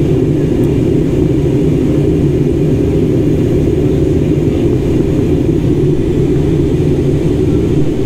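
Steady cabin noise inside a jet airliner in flight: engine drone and rushing air, heaviest in the low range.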